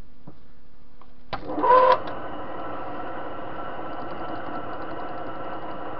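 TV-16 lathe switched on about a second in: a brief loud burst with a rising whine as the motor and spindle spin up, then the lathe running steadily with the chuck turning.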